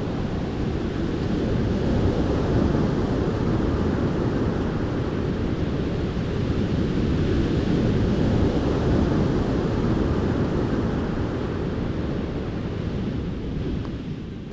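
Ocean surf making a steady, loud rushing, with wind on the microphone. It fades out near the end.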